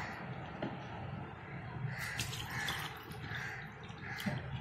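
Low room noise with a few light clicks and several faint, evenly repeated calls.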